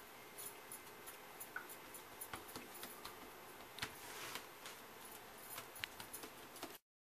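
Faint scattered clicks and soft scrapes of a silicone spatula pressing and smoothing thick halwa into a metal baking tray, with a longer scrape about four seconds in. The sound cuts to dead silence for a moment near the end.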